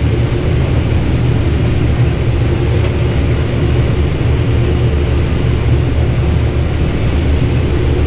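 Combine harvester running steadily while harvesting corn, heard from inside the cab as a loud, even, low drone with a faint steady hum above it.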